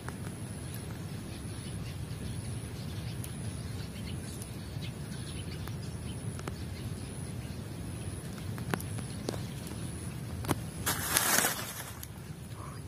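Outdoor pond-side ambience with a steady low rumble and a few light clicks. About eleven seconds in comes a short splashy rush of noise as a hooked fish is pulled across the water's surface.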